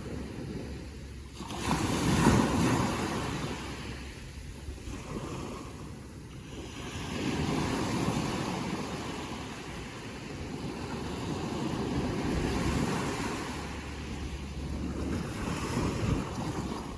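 Ocean waves breaking and washing in: four swells of surf noise that rise and fall, the loudest about two seconds in.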